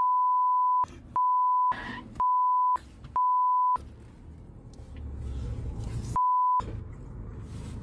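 Censor bleep: a steady pure beep tone sounds five times, each under a second long, four in quick succession and a last one near the end, with everything else muted while it plays. Between the bleeps is the low rumble of the moving car.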